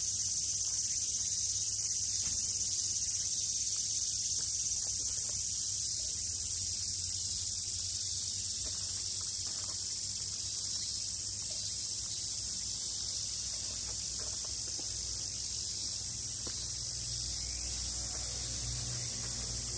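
Dense, steady high-pitched shrilling of a chorus of summer insects, with a faint low rumble beneath.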